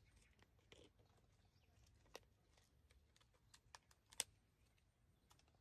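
Near silence broken by scattered faint clicks and ticks, the sharpest about four seconds in, from a small plastic jelly cup being handled.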